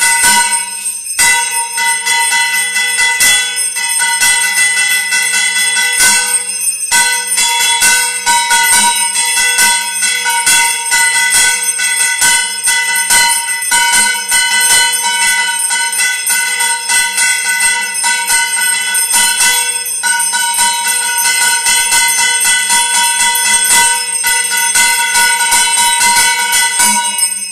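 Temple bell ringing rapidly and without pause for the mangalarti, the strokes running together into one continuous ring. It dips briefly about a second in.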